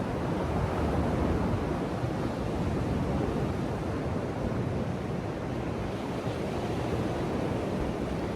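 Ocean surf washing onto a beach: a steady, unbroken rush of waves, with a low rumble of wind on the microphone.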